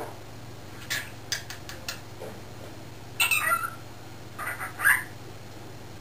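Cockatiel chirping and calling: a few short chirps, then a louder call about three seconds in that falls in pitch, and a few more calls near the end.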